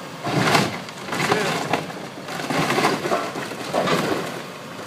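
Bridge structure being crushed and broken apart by demolition machinery: about four loud, irregular crunching bursts.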